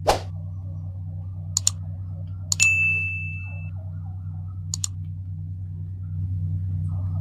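Click sound effects and a bell ding from a like-and-subscribe reminder: a quick double click, then a click with a ringing ding that lasts about a second, then another double click. Under them runs a steady low machine hum that pulses a few times a second.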